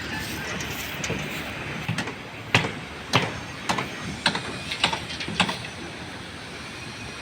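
Construction work: a run of about seven sharp strikes, roughly one every half second, that starts about two seconds in and stops before the end, over a steady background din.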